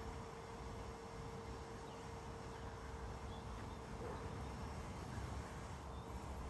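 Quiet outdoor ambience: a low, uneven rumble with a faint steady hum, and no distinct event.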